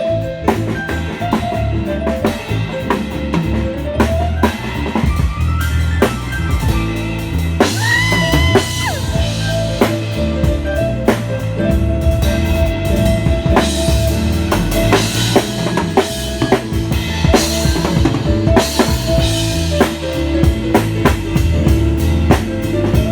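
A live band playing through a sound check, led by a drum kit with steady bass drum and snare strokes and rimshots. Held pitched notes from other instruments run underneath, with one note gliding up and down about a third of the way in.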